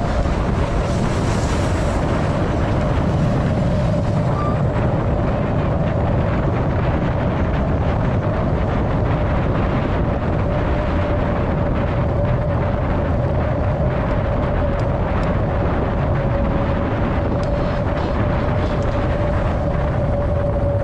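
Heavy wind buffeting an action camera's microphone on a fast downhill bicycle ride, a steady rushing noise with a steady tone running under it.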